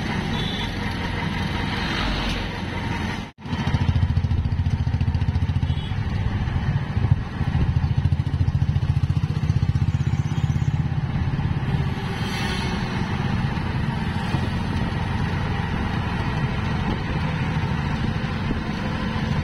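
Auto-rickshaw engine running steadily, heard from inside the open cab, with road and traffic noise from motorcycles and scooters alongside. The sound drops out for an instant about three seconds in and comes back louder.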